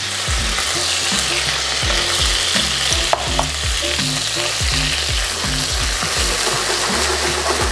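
Chicken pieces and sambal paste sizzling hard in hot oil in a steel wok on an induction hob, stirred and pushed around with a wooden spatula. The sizzle is a steady hiss, with short knocks from the spatula against the pan.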